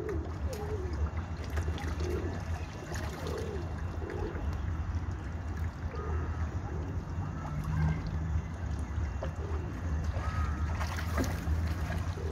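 Pond water gurgling and lapping as fish and a turtle feed at the surface, with small irregular slurps over a steady low rumble.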